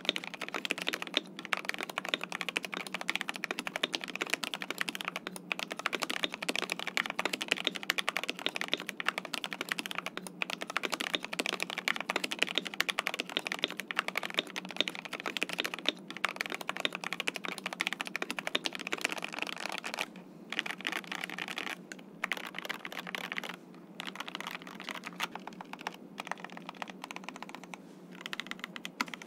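Epomaker TH80 mechanical keyboard with factory-lubed Gateron Pro Red linear switches being typed on at a fast, steady pace. About twenty seconds in the keystrokes become sparser and more spaced out.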